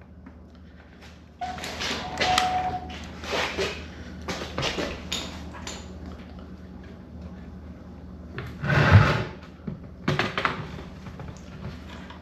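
Hand tools and parts being handled while a motorcycle headlight is unbolted and removed: irregular scraping and clattering, with a heavier thump about nine seconds in.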